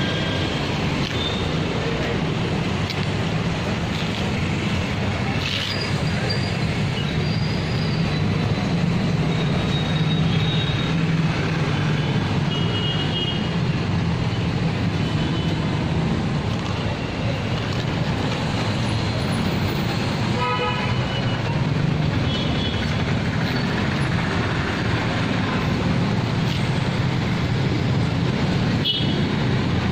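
Steady street traffic noise, with a few short horn toots breaking through it.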